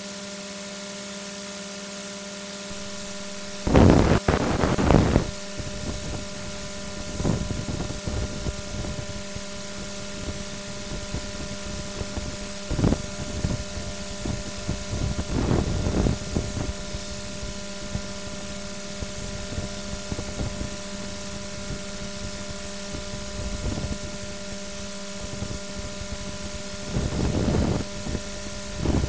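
Steady electrical hum from a nest-box webcam's microphone, joined about four seconds in by wind buffeting the microphone as a low rumble that swells in several gusts.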